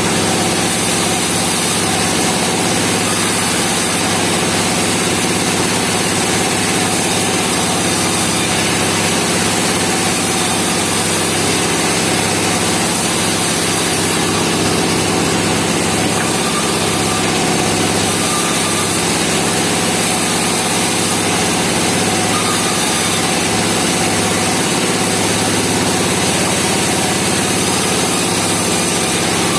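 Engine-driven sawmill running steadily: a constant engine drone with a steady hiss over it.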